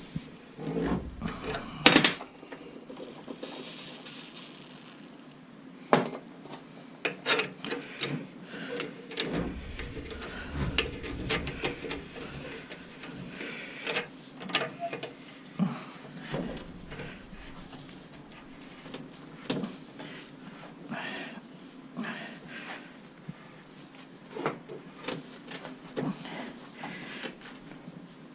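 A clamp bolt being turned back and forth into a steering tie rod's thread with a hand tool to chase the thread: irregular metal clicks and knocks with scraping between them.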